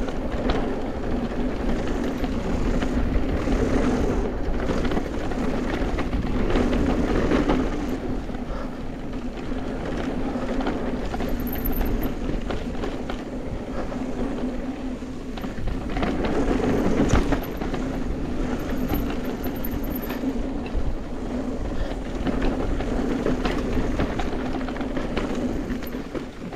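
Mountain bike descending a rough, bumpy trail: steady rolling tyre and wind noise, with the bike rattling and clattering over the bumps.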